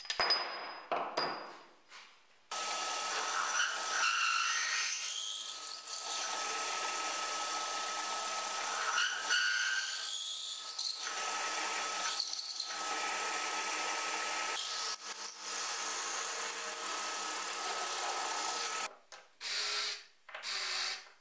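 A few clicks of aluminium parts and bolts being handled, then a bench drill press running steadily with a constant whine while it drills out holes in aluminium parts to 10 mm. Near the end a cordless drill runs in a few short bursts on an aluminium plate.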